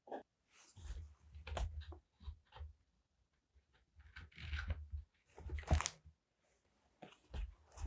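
Paper and stickers being handled for journaling: scattered crinkling rustles and light taps with soft bumps on the desk, a longer rustle about four seconds in and a sharper crackle near six seconds.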